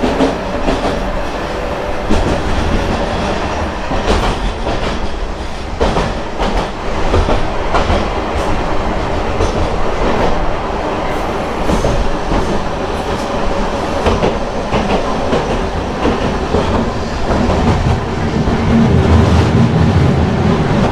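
Hankai Tramway Mo 351-series tram running along its track, heard from inside the car: the whine and growl of its nose-suspended (tsurikake) traction motors, with scattered clicks of the wheels over the rails. The low rumble grows stronger near the end.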